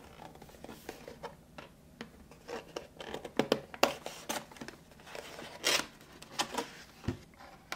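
Cardboard smartphone box being handled and its inner box slid out of the outer sleeve: a series of short soft scrapes and rustles of card on card.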